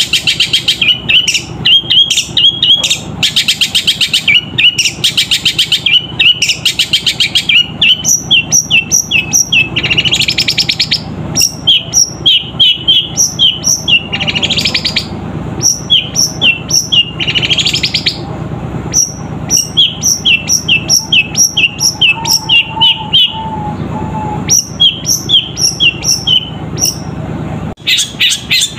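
Caged long-tailed shrike singing runs of rapid, sharp, loud chirps with short pauses between runs, mimicking the chirping of a sparrow.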